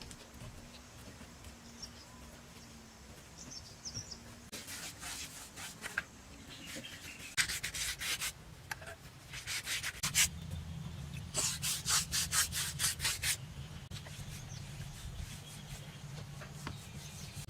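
Fast back-and-forth scraping strokes, as of hand tool work on a rough surface, in three bursts of a couple of seconds each.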